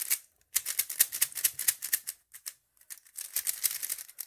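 A new QiYi Thunderclap V3 M magnetic 3x3 speedcube being turned fast, straight out of the box. Its plastic layers click and clack rapidly in runs of quick turns, broken by short pauses of under a second.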